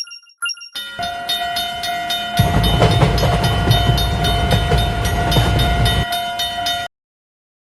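Animated railroad-crossing sound effects: a few short electronic beeps, then a crossing alarm ringing with rapid, regular strikes over a steady tone. A train rumbles past in the middle, and everything cuts off abruptly near the end.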